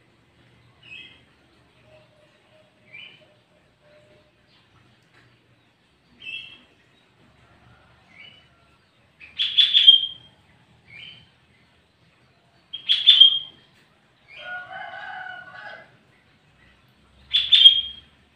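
Sooty-headed bulbul (kutilang) calling: short chirps about every two seconds, broken by three much louder sharp calls. About fifteen seconds in there is a longer, lower call of about a second and a half.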